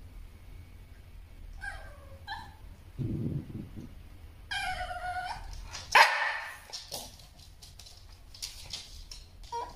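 Shiba Inu vocalising: short high whines, a low growling rumble about three seconds in, a longer whine, then one sharp bark about six seconds in, the loudest sound.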